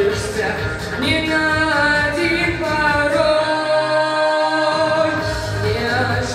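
A teenage boy singing a Russian pop song into a handheld microphone over a recorded backing track, drawing out long held notes. The bass and beat drop out for about a second past the middle.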